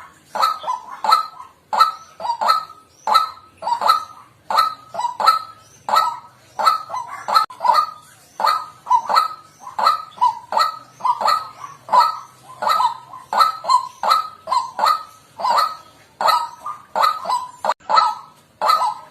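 White-breasted waterhen calling: a loud, steady string of short, harsh 'kwak' notes, about two a second and often in close pairs.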